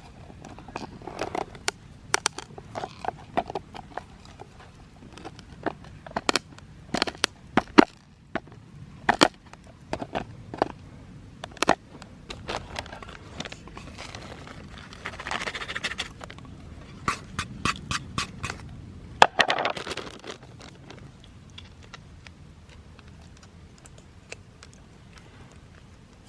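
Scattered sharp clicks and knocks, with a few short scraping sounds, as objects are handled. They thin out near the end.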